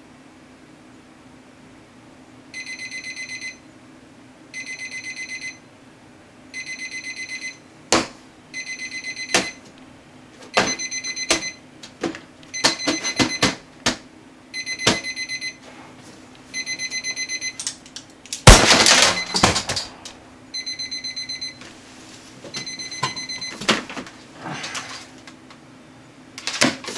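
Alarm clock beeping in quick rapid-fire bursts about a second long, repeating every two seconds or so, starting a few seconds in. Sharp knocks from the clock being hit come in among the beeps, with one loud clatter about two-thirds of the way through, over a steady low hum.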